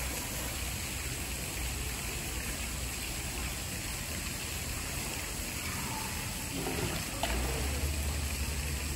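Steady rush of running water, with faint voices in the background about two-thirds of the way in.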